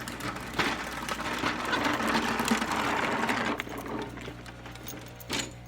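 Walk-behind lawnmower being pushed over the ground, its wheels and deck rattling and clattering for about three seconds before it comes to rest.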